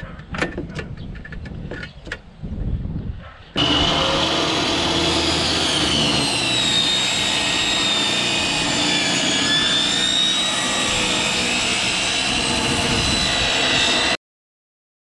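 Light clicks and knocks of handling at the saw, then a portable table saw running and ripping a pine board: a loud, steady run with a high whine that dips slightly under the cut around the middle. The sound stops abruptly near the end.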